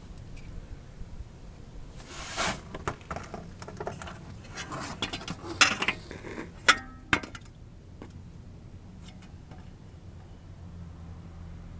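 Small metal tools and parts clinking and rattling as they are handled, in a busy run of clicks through the middle, one with a short metallic ring near the end of it.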